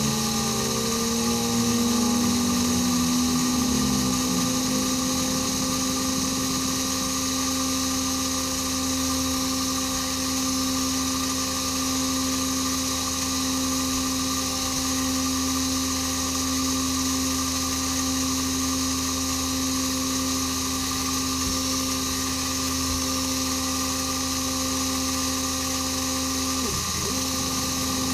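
CNC-converted mini mill contour-milling quarter-inch steel plate under flood coolant: a steady motor whine over a hiss of cutting and coolant. The pitch shifts at the start, and near the end it briefly dips and comes back.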